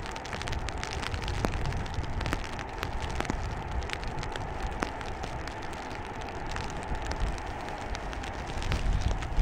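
Steady rain, with scattered drops ticking close to the microphone, over a low rumble of wind and distant jet noise as an Airbus A380 lands on a waterlogged runway.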